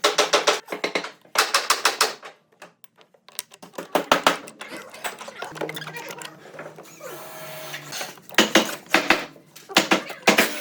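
Rasping or filing on wood in short scraping strokes, several bursts under a second each with pauses between.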